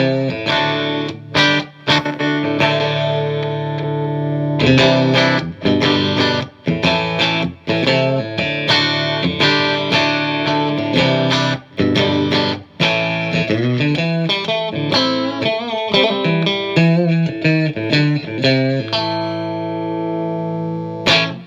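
Electric guitar with the middle single-coil and the bridge hot-blade humbucker in full humbucker mode, played through a Marshall JVM210 2x12 combo's clean channel: strummed chords and picked single notes with short pauses between phrases. It stops shortly before the end, leaving a faint amp hum.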